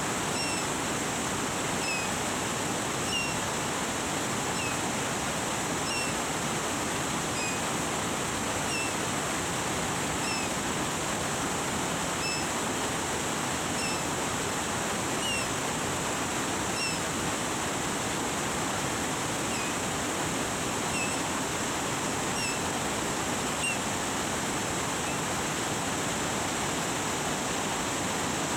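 Waterfall: a steady rush of falling water, with faint short high chirps repeating about once a second.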